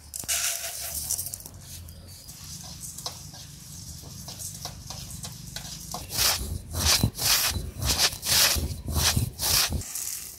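Dry coriander seeds poured into a steel pan with a brief rustling rush, then stirred as they dry-roast, giving a run of scraping, rattling strokes about two a second in the second half.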